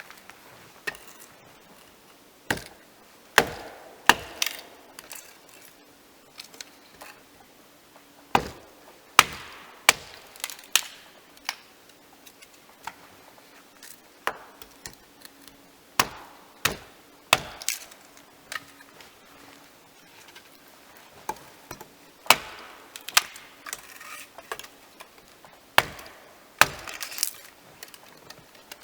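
Hultofors axe chopping wood: sharp, separate blows at an irregular pace, sometimes a second or more apart and sometimes in quick pairs.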